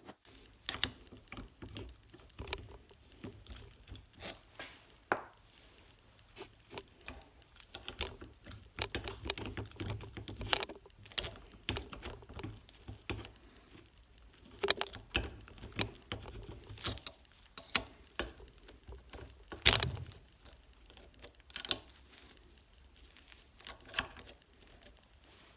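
Irregular metal clicks and knocks from the parts of a Subaru WRX STi CV joint being handled and worked apart by hand, with one louder knock about twenty seconds in.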